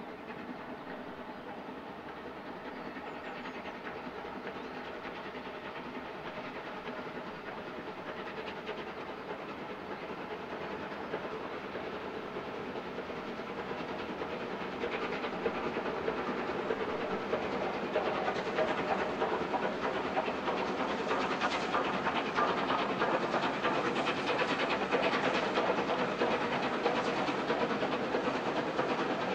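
LMS Royal Scot class 4-6-0 steam locomotive No. 46100 at work with its train, the exhaust and the running of the train on the track growing louder over the second half.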